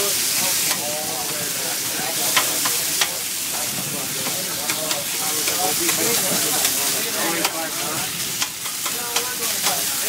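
Ground meat for sloppy joes sizzling in a hot pan while a spatula scrapes and pushes it around, a steady frying hiss with many short sharp scrapes.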